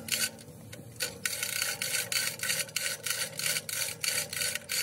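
Hand-worked rasping strokes on the end of a steel truck axle: a steady back-and-forth rubbing at about three strokes a second, pausing briefly about half a second in.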